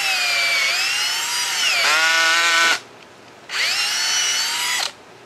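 Power drill boring into a tree trunk. The motor whines in a long run that drops in pitch about two seconds in as the bit loads up in the wood. It stops, then runs again in a shorter second run.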